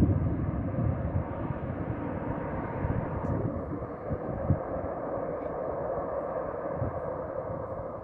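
Airbus A320 airliner's jet engines heard from afar on final approach and landing: a steady rushing noise with an uneven low rumble, loudest at the start and slowly fading.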